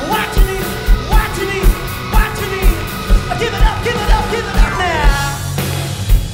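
Upbeat 1980s-style rock song with a male lead vocal over a steady, heavy beat about twice a second; about five seconds in, the voice slides down in one long fall.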